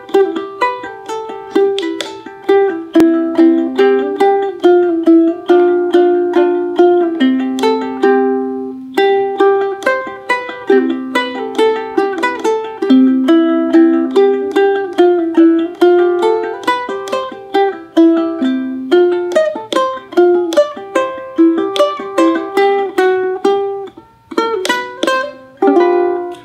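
A solid-body ukulele shaped like an electric guitar is plucked, playing a lively tune of quick picked notes and chords, with a brief pause near the end.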